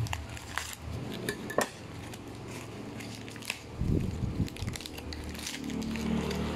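Hands unwrapping a parcel: scattered clicks and scrapes of cardboard and plastic packaging being handled, with a louder rustle about four seconds in and plastic bag crinkling near the end.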